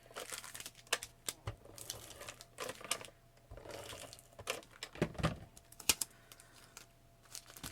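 Irregular clicks, taps and light rustling of paper and crafting tools being handled on a table while scrapbook pages are assembled.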